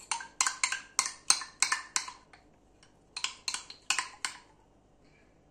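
Metal spoon clinking and scraping against the inside of a small glass tea glass while scooping out thick tahini. A quick run of sharp clinks lasts about two seconds, then after a pause comes a shorter second run.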